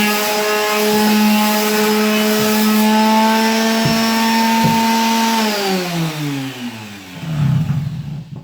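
Electric sander running steadily on a primed canvas, then switched off about five seconds in, its motor whine sliding down in pitch as it spins down. A brief scuffing noise follows near the end.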